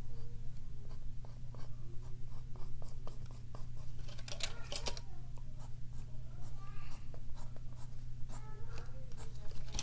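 Pencil drawing on paper: a run of short scratchy strokes, over a steady low hum.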